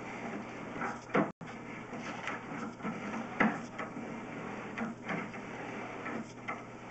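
Irregular knocks and scrapes of a sewer inspection camera's push cable being fed down a drain line, over a steady hum and hiss. The two loudest knocks come about one and three and a half seconds in.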